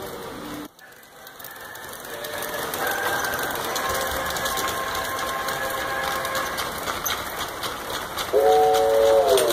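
LGB G-scale model train running on its track with light clicking from the rails, then about 8 s in a loud multi-note horn blast from a locomotive's sound unit that dips briefly in pitch near the end.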